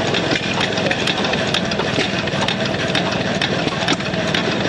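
A small home-made steam traction engine running steadily, its engine working in a fast, even rhythm.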